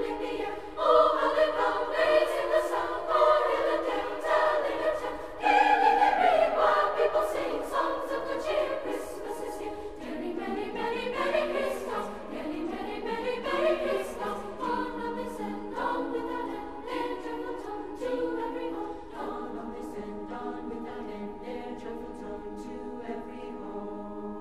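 A choir singing, several voice parts moving together, louder in the first half and growing softer from about ten seconds in.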